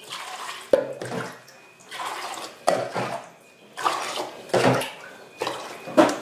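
Water being scooped from an aluminium stockpot with a plastic measuring jug and poured into a cloth-lined pot, over and over, with splashing. Each scoop opens with a sharp knock of the jug against the pot, about four times.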